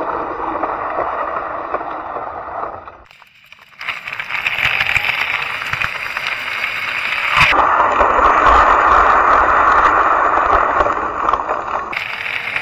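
Wind rushing over a chest-mounted camera's microphone with road noise as an electric drift trike rolls over asphalt. The sound changes abruptly at cuts between clips and drops out briefly about three seconds in.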